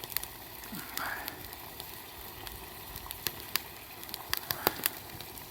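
Wood campfire crackling, with irregular sharp pops scattered through and a brief hiss about a second in.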